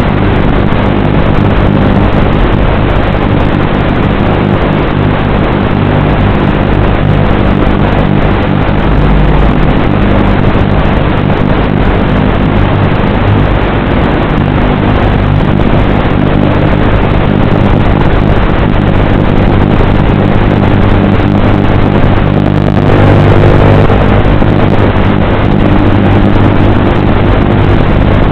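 Small FPV drone's electric motors and propellers giving a loud, steady buzzing hum, briefly surging about three-quarters of the way through.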